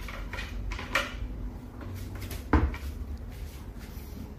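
An over-door towel rack clicking and scraping as it is hooked over the edge of a kitchen cabinet door. Then a single loud knock about halfway through, as the cabinet door is shut, over a low steady hum.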